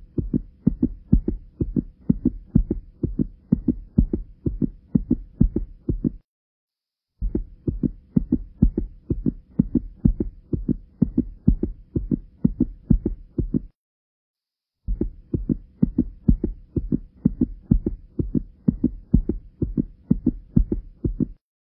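Low, regular thudding pulses, a heartbeat-like beat of about three thuds a second, in three stretches of about six seconds each, broken by two short, sudden gaps of silence.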